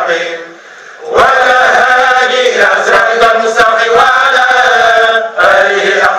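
A group of men chanting together in unison, a Sufi devotional chant. The chanting breaks off for about a second just after the start, then resumes.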